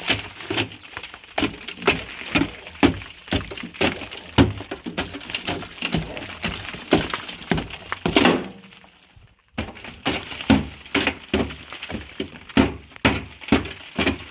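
Repeated sharp strikes and crumbling as hardened cob is chipped and broken away by hand tools, about two or three hits a second. The sound drops out for about a second past the middle, then the strikes resume.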